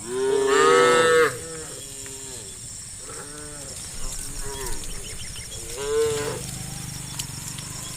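Cows mooing: one loud, drawn-out moo in the first second or so, then shorter, quieter moos from the herd, with another stronger moo about six seconds in.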